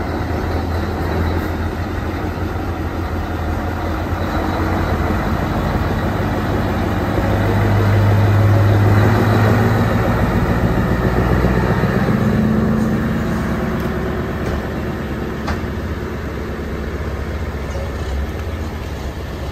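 Scania 143 lorry's V8 diesel engine running as the truck moves slowly past close by, loudest about halfway through, with its note rising briefly a little later before it eases away.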